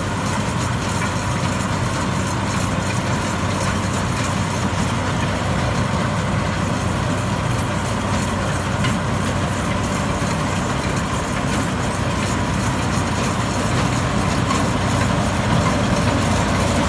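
Rice combine harvester's engine running steadily with the clatter of the machine working, a constant loud drone.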